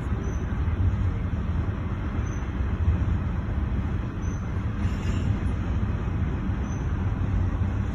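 CSX freight train rolling past a grade crossing, a steady low rumble heard from inside a stopped car.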